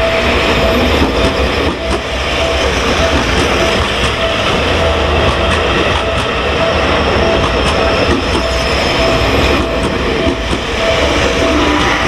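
Seibu Shinjuku Line electric commuter train running past close by, wheels rumbling and clacking over the rail joints. The level-crossing bell rings steadily through it, about twice a second.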